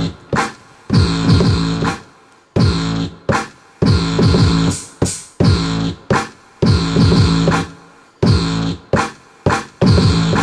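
Electronic drum and synth samples triggered by fingers on the pads of a Native Instruments Maschine Mikro MK2, played back through speakers. It is an irregular run of sharp hits, about one or two a second, each with a deep tone that slides down in pitch and dies away.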